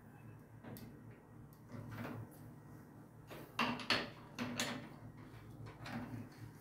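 Faint metallic clicks and scrapes of a wrench turning a fitting on a water-pipe angle valve, a few sharper knocks about halfway through, over a steady low hum.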